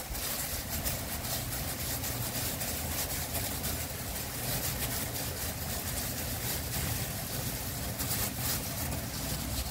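A steady low hum runs throughout, with faint crinkling of thin plastic food-prep gloves as gloved hands roll mochi dough into balls.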